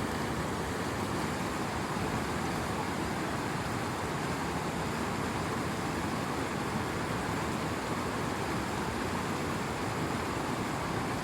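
Steady rushing outdoor noise with no distinct events, heaviest in the low end.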